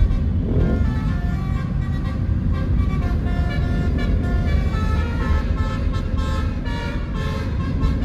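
Bus 'telolet' musical horn playing a tune of stepped notes, heard from inside a following car over steady road and engine rumble.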